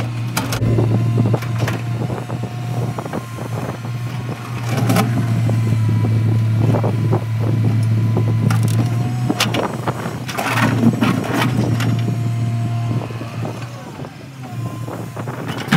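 Komatsu PC200 hydraulic excavator's diesel engine running with a steady drone, with scattered knocks and scrapes as the bucket works the dirt and rock.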